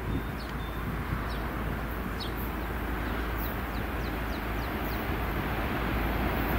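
Pair of EMD SD40E diesel locomotives approaching: a steady engine rumble with wheel and rail noise, growing gradually louder. A bird gives a few short, high, falling chirps over it.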